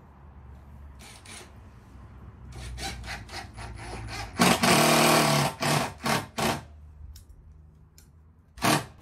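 Power drill driving hinge screws into the door jamb: a run of about a second just before the middle, then three short trigger bursts, and one more short burst near the end, with scattered clicks before it.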